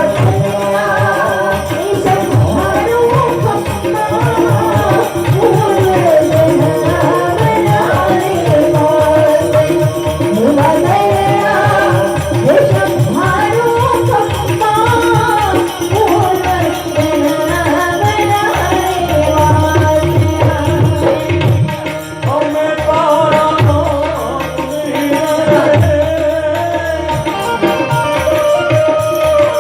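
Gujarati folk music: a tabla keeps a steady rhythm under a sung melody that rises and falls over a held drone note.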